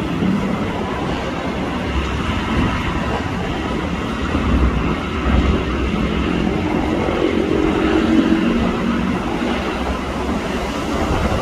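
A train running on rails, a steady rumble with a faint tone that swells and fades through the middle.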